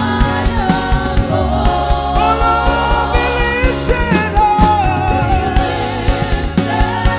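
Live gospel worship music: a band with a steady drum beat under singers holding long, gliding notes.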